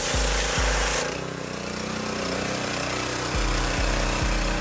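Pressure washer jet spraying onto a mini bike's rear wheel and frame with a loud hiss, which stops about a second in when the spraying ends. Under it runs a steady drone with an even beat about twice a second, which drops out briefly and returns near the end.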